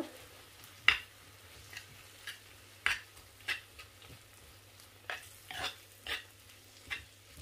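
A spoon scraping and knocking against the inside of a small clay tagine in short, irregular strokes, about nine in all, as tomato and vegetables are spread in it.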